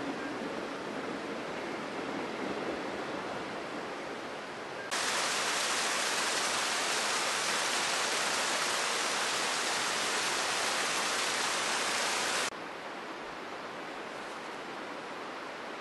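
Small waterfall splashing down a rock face, a steady loud hiss that starts abruptly about five seconds in and cuts off sharply about twelve and a half seconds in. Before and after it, a quieter steady rushing.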